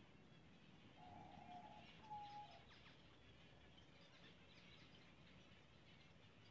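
Faint overlapping chirps and calls of a zebra finch colony. About a second in, a steady pitched tone lasts nearly a second, followed by a shorter, slightly higher one.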